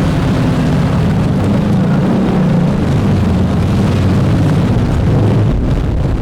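City street noise: a steady low engine rumble from a vehicle close by, over a general traffic hum.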